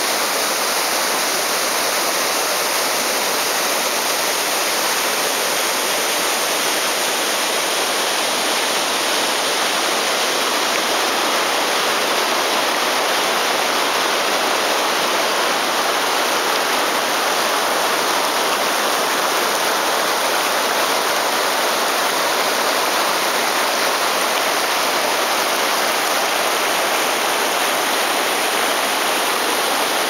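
Steady rush of water from a wide, low waterfall pouring over a rock ledge and the river riffles below it, an even hiss that does not change.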